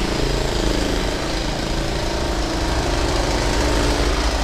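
An engine running steadily with a wavering hum over a continuous low rumble.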